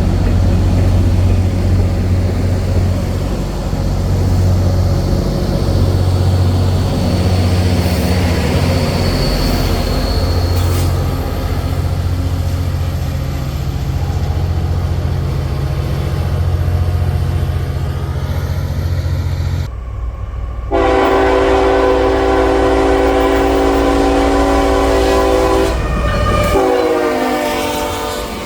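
A diesel locomotive passing close with its engine running loud and steady and the train clattering over the rails for about twenty seconds. Then a multi-chime locomotive air horn sounds a long blast of about six seconds, followed by a shorter blast that drops in pitch as it goes by.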